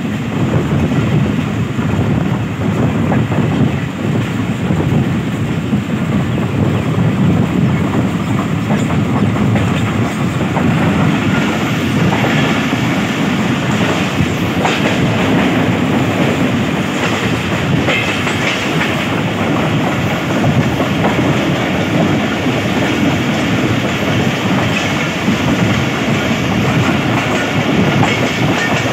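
Wheels of a Pakistan Railways passenger coach running at speed, heard from the coach itself: a steady rumble over the rails with rhythmic clickety-clack of the rail joints, and a run of sharper clacks around the middle.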